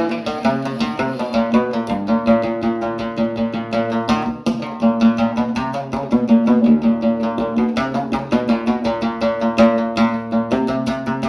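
Background music of fast, rapidly plucked string instrument notes over a steady low drone.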